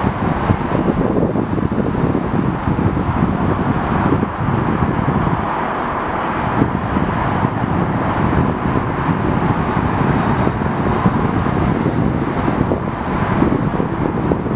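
Steady outdoor rumble with wind buffeting the microphone, level and unchanging throughout.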